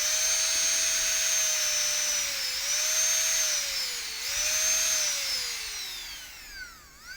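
Professional manicure nail grinder's small high-speed motor whining at full speed, dipping briefly twice, then winding down in pitch as the speed is turned down, with a short rev up and down near the end. The speed control works smoothly from zero with its new potentiometer.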